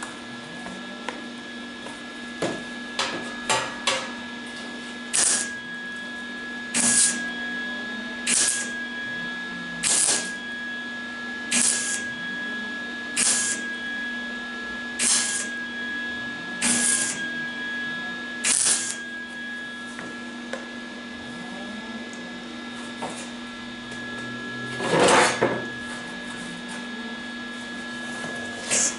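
MIG welder laying a row of short tack welds on thin MGB front-valance sheet steel: nine brief bursts about every second and a half over a steady hum, then a longer, louder burst near the end. The welder is turned down for the thinner metal.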